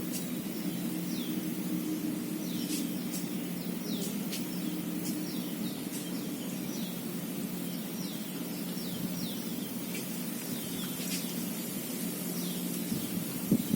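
Birds chirping: many short, high calls that each fall in pitch, repeated throughout, over a steady low hum. A brief knock sounds near the end.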